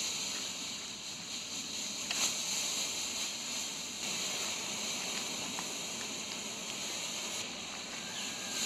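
Pull-string colour smoke grenades hissing steadily as they pour out smoke: an even, high hiss whose highest part drops away near the end, with a few faint ticks.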